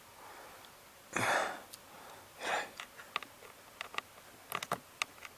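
Two short breaths or sniffs, one about a second in and another about two and a half seconds in, followed by a scatter of light sharp clicks and taps.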